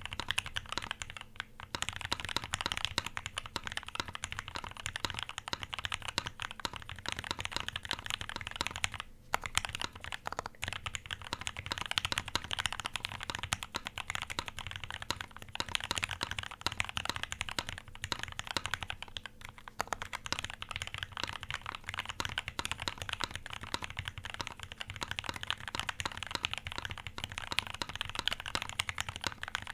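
Continuous typing on a Kyuu custom mechanical keyboard built with a brass plate and lubed Gateron Red Ink v2 linear switches. It is a rapid stream of keystrokes, broken by a few short pauses.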